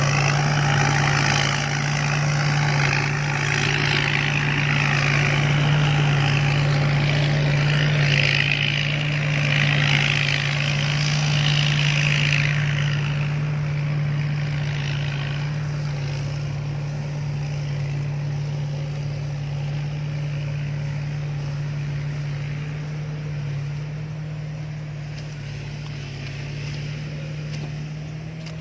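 Rice combine harvester's diesel engine running steadily under load, with a loud hiss from its working machinery that dies down about halfway through. The whole sound grows gradually quieter toward the end.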